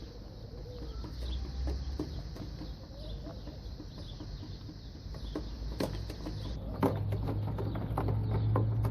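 Birds making low, soft calls in the first few seconds, followed by a run of sharp clicks and knocks in the second half.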